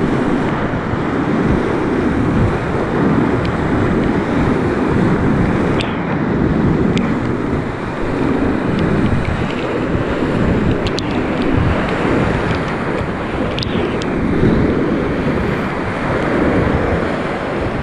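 Loud, steady rush of churning whitewater on a river in flood, heard from a kayak running the rapids, with the wash buffeting the microphone. A few brief knocks stand out over the roar.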